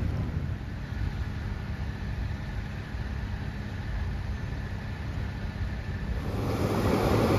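Car engine idling with a steady low hum. About six seconds in, a loud rush of floodwater comes in and covers it.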